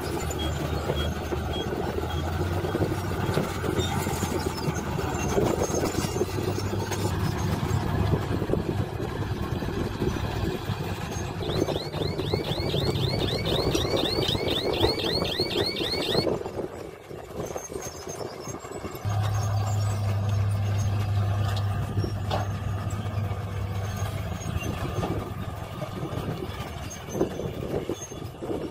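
Heavy diesel dump truck engines running steadily. Midway, a truck's reversing alarm sounds a rapid series of rising chirps, about four or five a second, for several seconds. The engine sound drops away briefly and then returns.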